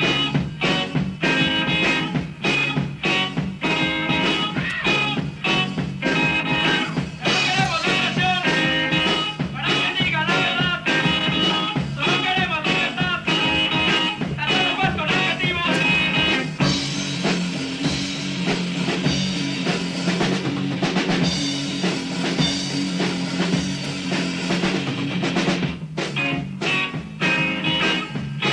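Punk rock band recording: electric guitar over a steady drum beat, the sound thickening and brightening for several seconds in the second half.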